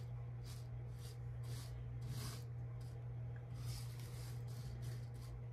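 Faint swishing strokes of a brush sweeping loose rhinestones across a rhinestone template, roughly two strokes a second, over a steady low hum.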